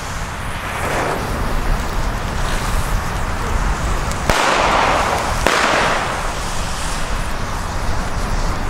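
Lit fuse of a Pyro-Union Chiarappa firecracker hissing and spitting smoke on the pavement, the hiss growing louder about four seconds in, with a couple of sharp crackles. Wind rumbles on the microphone throughout.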